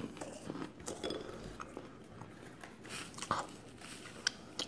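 Close-up chewing of a large meringue: faint, irregular crunches and wet mouth clicks, with a sharper lip smack near the end as fingers are licked clean.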